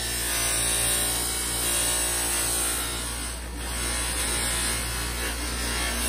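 Bench buffer motor running with a loose cloth buffing wheel, a stabilized-wood knife handle pressed against it and rubbing as it is polished with compound. The rubbing eases briefly about halfway through.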